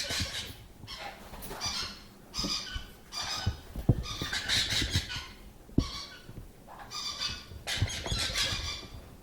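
Baby caique parrot chicks giving raspy, hissing squawks in repeated bursts about once a second, with a few soft bumps in between.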